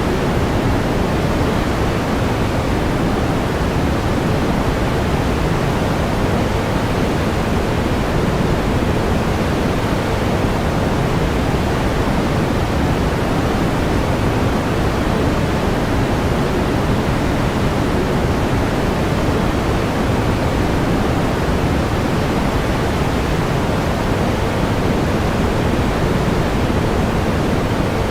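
Steady pink noise: an even, unchanging hiss weighted toward the low end.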